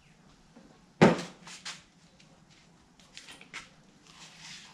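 Handling noise from a plastic oil bottle and funnel: one sharp knock about a second in, two lighter clicks just after, then faint clicks and soft rustling.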